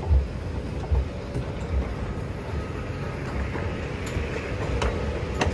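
Singapore MRT train running: a steady rumble with uneven low thuds, a faint steady hum, and a few light clicks near the end.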